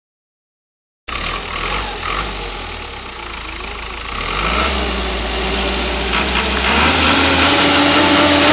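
Log skidder's diesel engine running as the machine crawls down a steep slope. It starts about a second in, then rises in pitch and gets louder toward the end.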